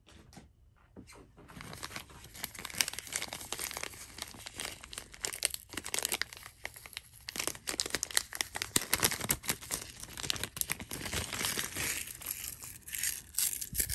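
Packaging crinkling and being torn open by hand: dense, irregular crackles that start about a second and a half in and carry on without a break.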